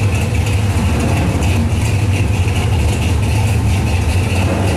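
Car engines idling with a steady low rumble, as show vehicles are started up to be driven out.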